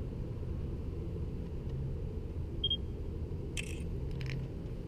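Smartphone camera taking photos: a short high beep about halfway through, then a couple of quick shutter clicks, over a steady low rumble.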